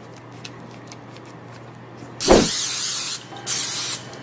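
Aerosol cooking spray hissing onto a metal loaf pan in two bursts, the first about a second long and the second about half a second, to grease it. Before that, faint light scraping of a spoon stirring batter.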